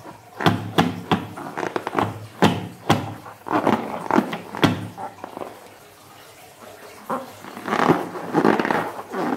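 Fingers squeezing and rubbing a slime-filled latex balloon: rubbery squeaks and sharp clicks. A quieter lull comes past the middle, then a louder run of squeaking near the end.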